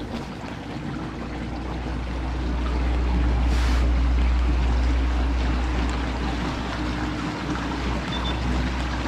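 Bow-mounted MotorGuide Xi3 trolling motor running, pushing a kayak through a concrete culvert: a steady low rumble and hum with water washing along the hull, swelling about three seconds in.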